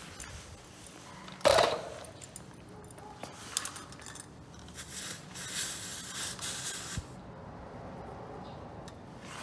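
A sharp clack about a second and a half in. Later comes a hiss of air escaping from a motorcycle tyre's Schrader valve for about two seconds as the inflator hose's chuck is fitted onto it, cut off suddenly with a click as the chuck seals.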